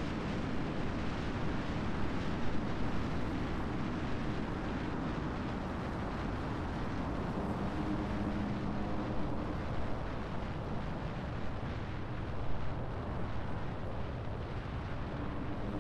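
Steady rushing wind and road noise on a vehicle-mounted camera as the car drives along a paved road, with a faint low hum rising briefly about halfway through.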